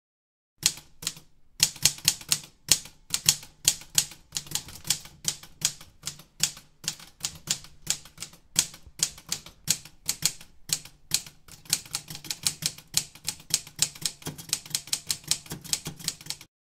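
Typewriter keys striking in an irregular run of clicks, several a second, starting about half a second in and stopping just before the end: a typewriter sound effect laid under text being typed out.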